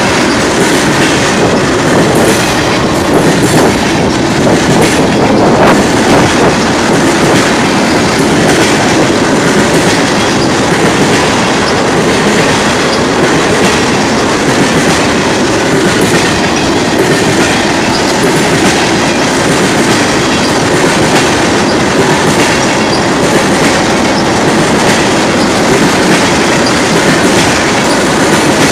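Freight train of tank cars rolling past, loud and steady, its steel wheels running over the rails with a continuous clatter.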